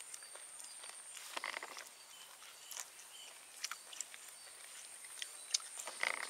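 Quiet outdoor rural ambience: a steady high-pitched insect drone, with scattered light clicks and two brief rustles, one about a second in and one near the end.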